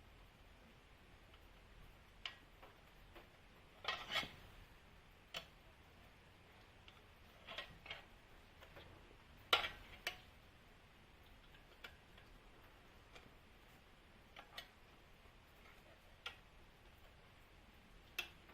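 Light clicks and knocks from tools and parts being handled while changing a motorcycle tyre, about a dozen at uneven intervals, the loudest around four seconds in and near ten seconds.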